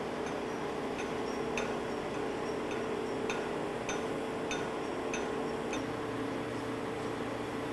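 Steady engine hum of a Lorain truck crane running, with a run of about eight light, sharp clicks roughly every half second from about one to six seconds in. Near the end the low part of the hum grows a little stronger.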